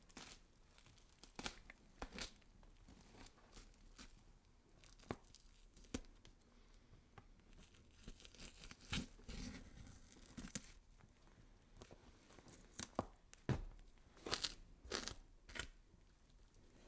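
Horror sound effect of flesh being scraped and cut: short, sharp scraping and cutting strokes at irregular intervals, bunching into quick runs around the middle and near the end.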